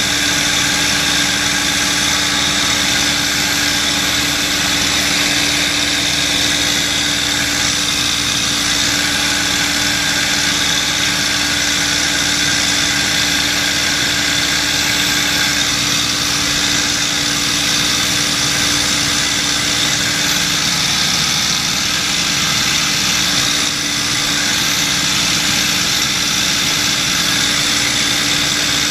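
P-51 Mustang's Merlin V-12 engine running steadily in flight, heard from inside the cockpit together with propeller and wind noise, with a constant drone.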